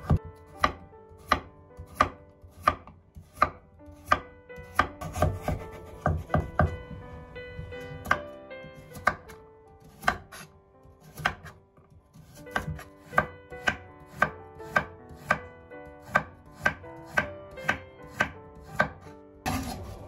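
Kitchen knife chopping a carrot on a wooden cutting board: a steady run of sharp knocks, about one and a half a second, with a short lull midway.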